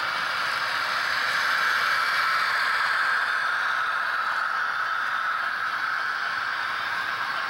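HO-scale model train rolling past on its track, a steady whirring hiss that swells a little as the trailing locomotive goes by.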